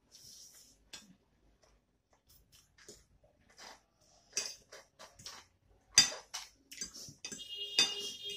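Metal forks and spoons clinking and scraping on ceramic plates while eating noodles, in scattered small clicks with one sharp, loud clink about six seconds in. A longer squeaky sound starts near the end.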